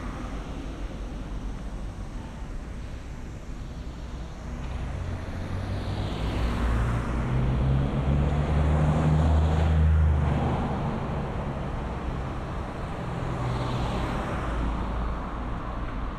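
Cars passing on a town road. The traffic noise builds to a loud pass-by about eight to ten seconds in, with engine hum and tyre noise. A lighter pass follows a few seconds later.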